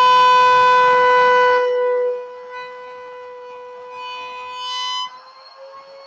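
Table router spinning at about 15,000 rpm with a steady high whine, its cutter taking a step cut in a piece of wood pushed across it. The cutting noise stops about two seconds in, leaving the whine of the running cutter, which swells briefly near the end and then drops.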